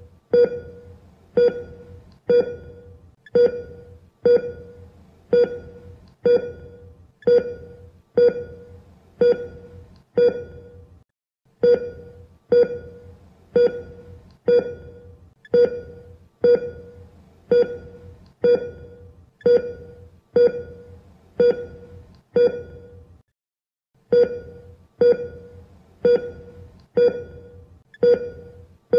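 Electronic beep, like a patient monitor's pulse tone, repeating steadily about once a second. Each beep is a single tone that fades quickly. It stops briefly twice.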